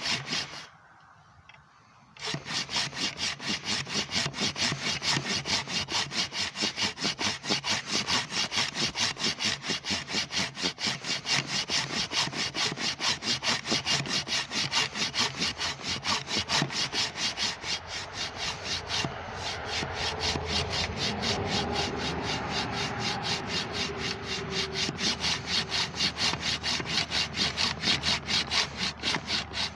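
Pruning-saw blade from a pole saw, worked by hand through wood. It makes a quick, even rhythm of back-and-forth rasping strokes, with a brief pause just after the start.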